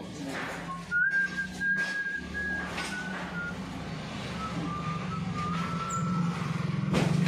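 A high whistled tone held in long notes that step up and down in pitch, over a steady low machine hum, with a few sharp knocks.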